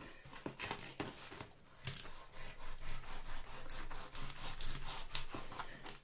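Kitchen knife cutting through the dry, rough skin and fibres of a ripe luffa gourd on a plastic cutting board: a run of scraping strokes that grows denser about two seconds in.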